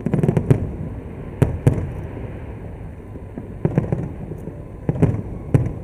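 Aerial fireworks exploding in a display: irregular clusters of sharp bangs and low booms, several in quick succession at the start, a pair about a second and a half in, and more around four seconds and near the end.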